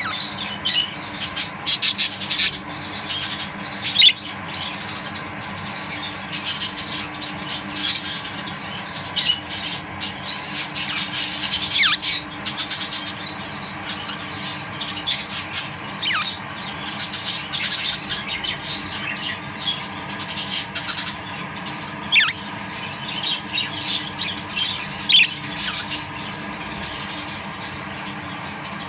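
A group of budgerigars chattering and squawking, with many short harsh calls and now and then a quick falling chirp. A steady low hum runs underneath.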